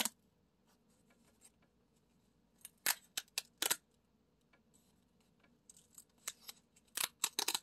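Paper pull-tab lottery card having its perforated tabs peeled back and torn open: short, crisp paper crackles and rips in two clusters, a few seconds in and again near the end.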